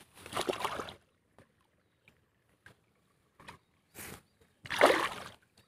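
Rustling in the bankside grass as a caught fish is handled, then water splashing at the bank as the fish is let go by hand: a brief splash about four seconds in and a louder one near the end.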